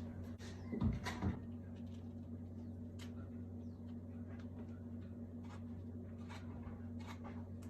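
Light kitchen handling sounds over a steady low hum: a duller knock about a second in, then scattered faint clicks and taps.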